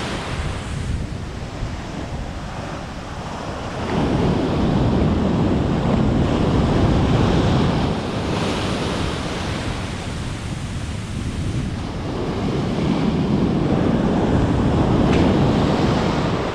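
Ocean surf breaking and washing on the beach, swelling louder twice, with wind buffeting the microphone.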